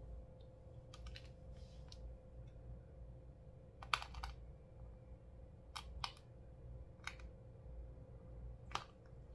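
Scattered small clicks and crackles of slime and makeup being handled in slime mixing, about eight in all, the sharpest about four seconds in and near the end, over a faint steady hum.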